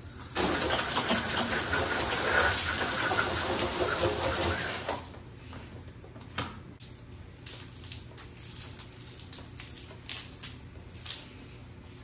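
Garden hose spraying water onto a window and the siding around it: a steady hiss that starts almost at once and cuts off about five seconds in. After it stops there are only a single knock and scattered faint taps.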